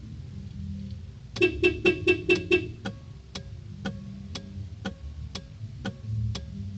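Aftermarket car alarm being armed: a quick run of six loud beeping chirps, followed by steady sharp clicking about twice a second over a low rumble.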